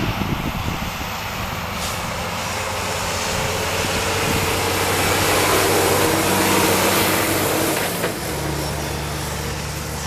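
Heavy harvest machinery running: an engine's steady hum under a broad, even rushing noise. The hum shifts to a different pitch about eight seconds in.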